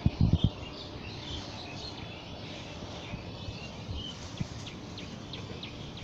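Small birds chirping and twittering over a steady low outdoor hiss, with a few dull footstep thumps in grass in the first half second.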